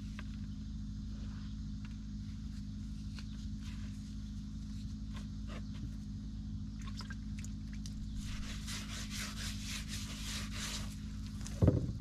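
Hands kneading bread dough in a wide dish: soft sticky pressing, rubbing and squelching, over a steady low hum. The handling turns quicker and crisper in the second half, and there is a brief louder burst just before the end.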